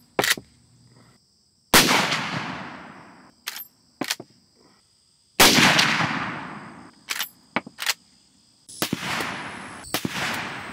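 Marlin 336 lever-action rifle firing .30-30 Winchester rounds: two sharp shots about three and a half seconds apart, each with a long fading echo, and each followed by two quick metallic clicks as the lever is worked to eject the spent case and chamber the next round. Near the end comes a quieter, duller report that fades slowly.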